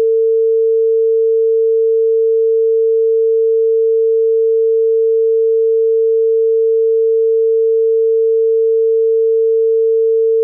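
Bangladesh telephone dial tone: one steady, unbroken low-pitched tone with no on-off cadence.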